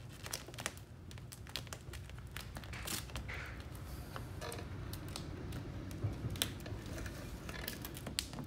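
Faint, irregular crinkles, taps and clicks of vinyl tint film being pressed and worked onto a headlight lens by gloved fingers, over a low steady room hum.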